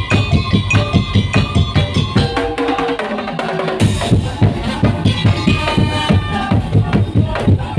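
Madurese tong-tong ensemble playing: a fast, even beat of drums and wooden slit drums, about four to five strokes a second, under a held melody line. The low drum beats drop out briefly around the middle, then come back.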